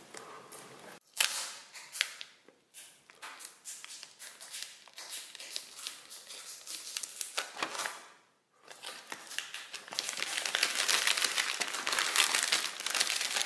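Clear plastic shrink-wrap being torn open and peeled off a phone box. Scattered crackles and clicks at first, then dense, steady crinkling from about two-thirds of the way in.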